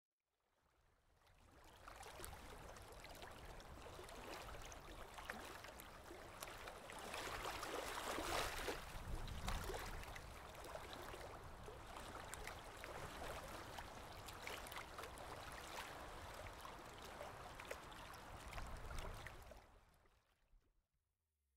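Steady rush of water noise that fades in over the first couple of seconds, swells about eight seconds in, and fades out near the end.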